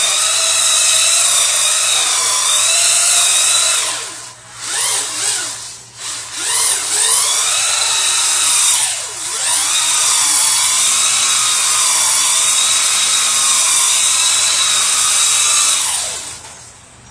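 Electric motor of a Duratrax Evader RC truck whining at high revs while doing donuts. The pitch slides down and back up a few times as it slows and speeds up, and drops away about a second before the end.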